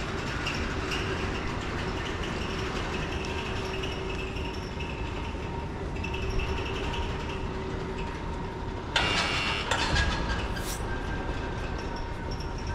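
Tram running along the street, its motors giving a steady whine over the street noise. About nine seconds in there is a sudden short hiss.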